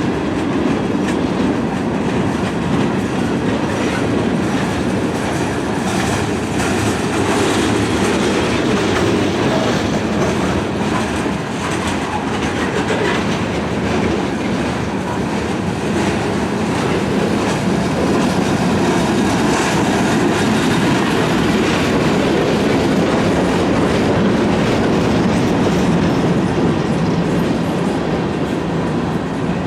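Freight train rolling steadily along the track, its wheels clicking over the rail joints.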